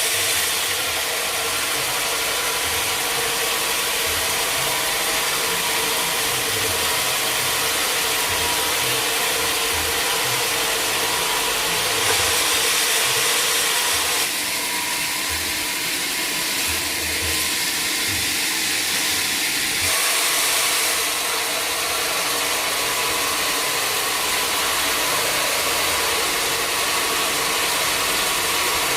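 Sawmill machinery running steadily, with short louder, brighter stretches about 12 and 20 seconds in.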